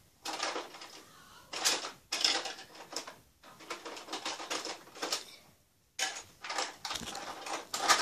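Fingertips dabbing and rubbing foundation into the skin of the face close to the microphone: soft rustling and tapping in short, irregular bursts.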